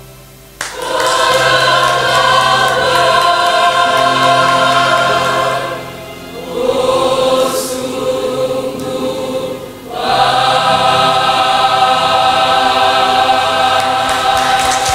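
Women's choir singing an Indonesian church hymn in long, held phrases. The choir enters about half a second in, with two short breathing breaks about six and ten seconds in. The last phrase is a long sustained chord.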